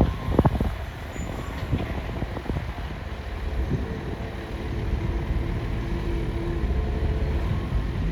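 Excavator running at work, with a low engine rumble and a couple of sharp knocks in the first half second. From about four seconds in, a steady pitched hum joins the rumble.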